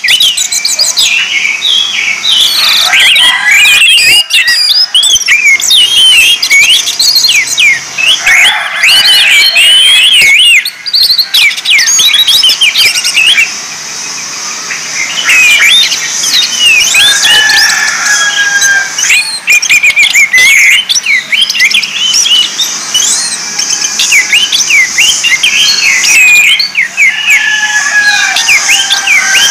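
Orange-headed thrush song: a loud, unbroken run of quick, varied chirps and sliding whistles over a steady high hiss, easing off briefly twice near the middle.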